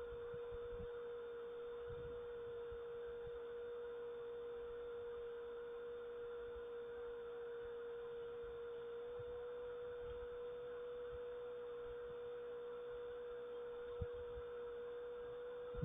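A steady, unwavering hum on one pitch that dips very slightly about halfway through, with faint low rumbles underneath like wind on the microphone.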